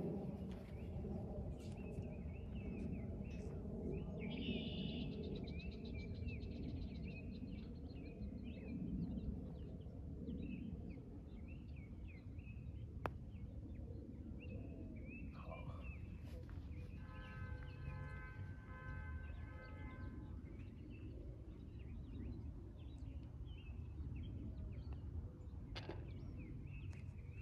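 Outdoor ambience: birds chirping and calling over a steady low rumble, with a single sharp click about halfway through.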